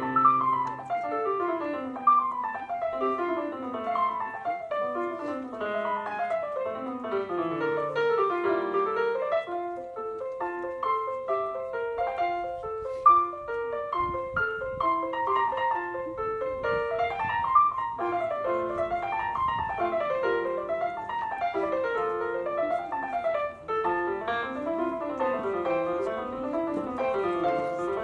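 Electronic keyboard played with a piano sound: fast arpeggios rippling down and back up, over and over.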